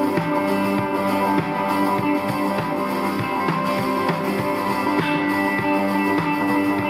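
Band music with electric guitar and drums.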